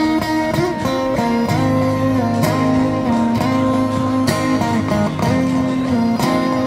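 Electric guitar played through an amplifier, picking a melody of held notes over a steady low bass line.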